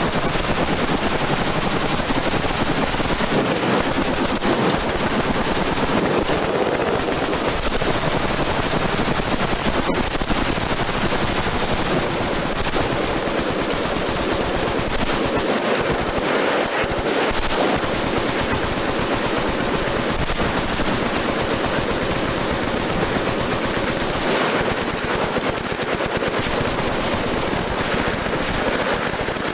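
Sustained automatic gunfire from several machine guns firing at once, the shots overlapping into a continuous rattle with no pause.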